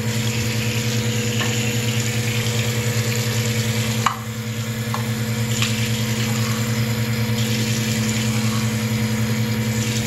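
Bathroom sink tap running into a plastic bird water cup and the basin, a steady splashing hiss over a low hum. About four seconds in, the sound drops a little and changes as the stream moves off the cup. A few light knocks come from the cup.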